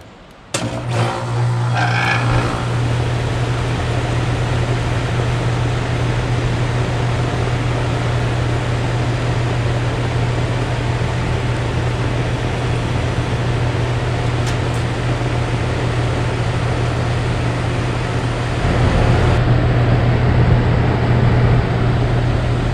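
Goodman central air conditioner outdoor unit starting up: about half a second in the compressor and condenser fan kick on suddenly, then run with a steady low hum under a broad fan whoosh. The sound gets a little louder near the end.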